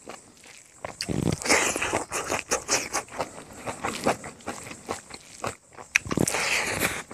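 Close-miked eating sounds: wet chewing and smacking with crunchy bites as a mouthful of rice and pork is chewed.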